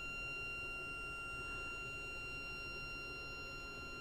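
Stepper motor of a Stepcraft 840 CNC driving the gantry along the X-axis lead screw: a steady high-pitched whine with evenly spaced overtones.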